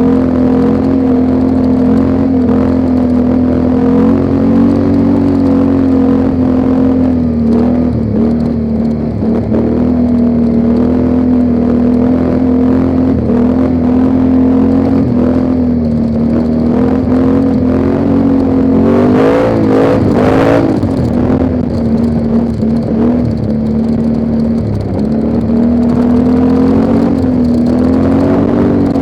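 ATV engine running steadily under way, its pitch shifting slightly with the throttle; about twenty seconds in it rises and falls quickly a few times.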